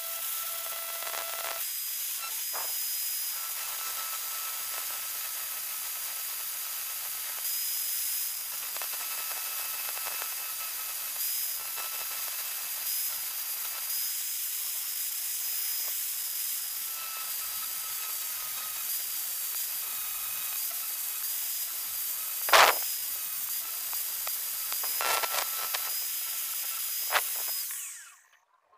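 Electric angle grinder with a thin cut-off disc running with a steady high whine and hiss, cutting a small steel rod for an air-rifle barrel stopper. A few sharp knocks come late on, and the sound cuts off suddenly near the end.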